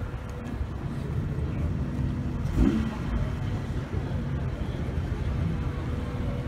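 Lowered car's engine and exhaust running low and steady as the car creeps slowly forward, with one short rise in pitch about two and a half seconds in.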